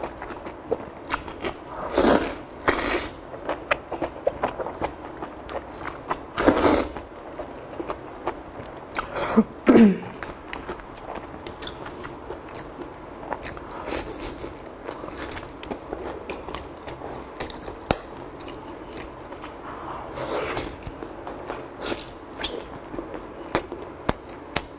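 Close-miked eating: a few loud slurps in the first several seconds, then steady chewing and biting with many small wet mouth clicks. There is a short falling pitched sound near the middle.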